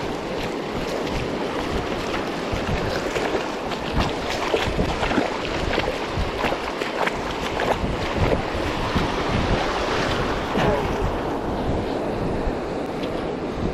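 Wind buffeting the microphone over surf washing onto a beach, in uneven gusts.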